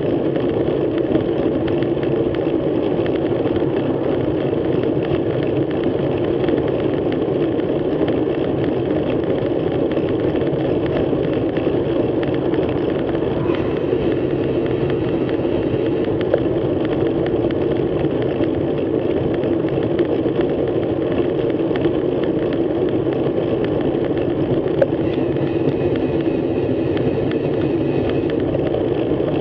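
Steady, muffled rush of wind and tyre noise from a bicycle riding at about 29 km/h, picked up by a bike-mounted action camera, with an occasional faint click.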